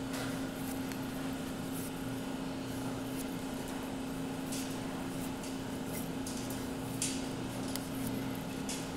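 Steady electrical hum with a faint background hiss, broken by a few faint clicks.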